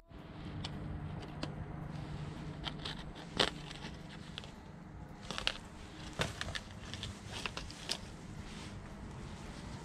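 Scattered small clicks and crackles as a Sabiki rig's paper-and-plastic package is opened and the rig's line is pulled free, over a low, steady hum.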